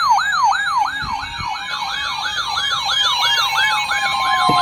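Electronic sirens sounding together: a fast yelp sweeping up and down about three times a second over slower gliding wail tones, with a steady tone coming in about three seconds in.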